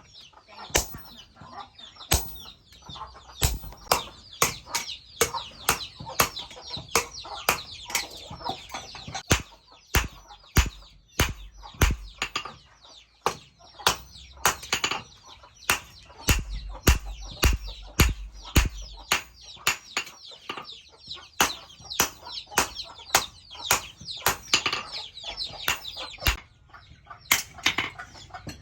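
Hand hammer striking the leaf-spring steel on an anvil while forging a chisel: sharp, uneven blows, about two a second.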